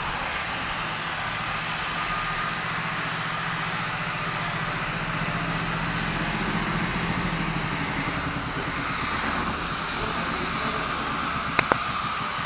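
A machine runs steadily, with a fast low pulsing under a broad hiss, and two sharp clicks come close together near the end.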